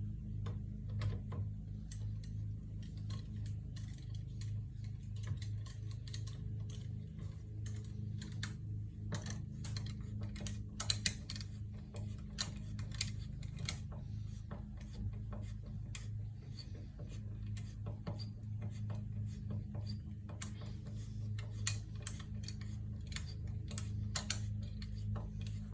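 Irregular light clicking and tapping over a steady low hum.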